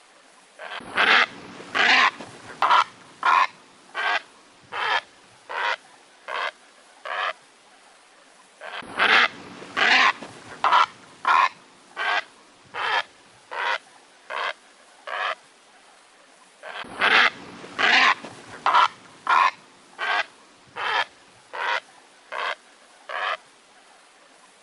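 Heron calling: a run of short calls, about three every two seconds, that start loud and fade away. The identical run repeats three times, about eight seconds apart.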